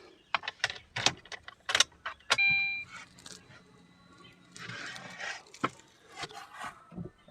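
Keys jangling and a run of sharp clicks and knocks as the car is being readied, with a short electronic beep from the car about two and a half seconds in.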